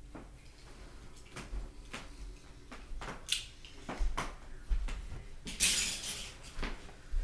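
Handling sounds: scattered light clicks and knocks of small hard toy pieces, die-cast cars and plastic track, being picked up and set down, with a short scraping rustle about two-thirds of the way in.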